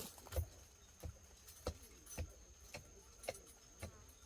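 A tool striking wood in a steady rhythm, about two knocks a second, as a notch in a timber is cut deeper so another piece can be pushed in.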